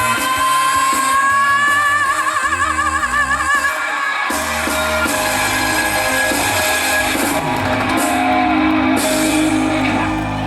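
Live trot song ending: the singer holds a long final note with a wide vibrato over the backing band, then the band plays out a sustained closing chord.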